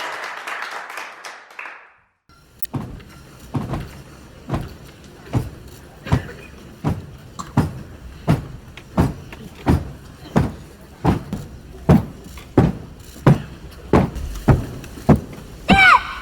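Applause fading out, then after a brief silence a steady series of dull thumps, about three every two seconds. A short squealing call comes in near the end.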